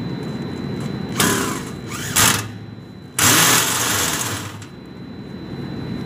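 A power drill driving screws into galvanized sheet-metal ductwork in three runs: about a second in, a short one about two seconds in, and a longer one about three seconds in that trails off. A steady low rumble lies underneath.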